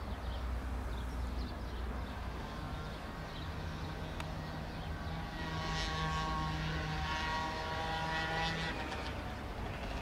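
Airbus A319 airliner on final approach, its jet engines heard from a distance as a steady rumble. About halfway in, a whine of several tones comes up and grows stronger as the plane draws nearer.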